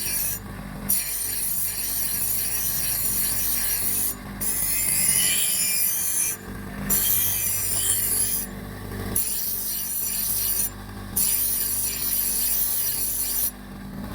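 Hand filing: long scraping strokes, each about two seconds, with short breaks between them, with a steady low hum underneath.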